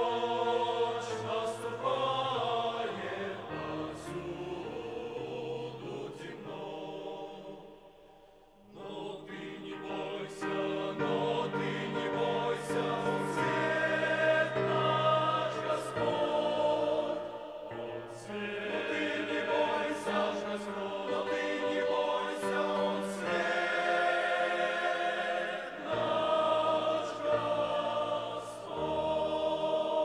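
Men's choir singing a hymn in Russian in several-part harmony, holding long chords, with a short breath between phrases about eight seconds in.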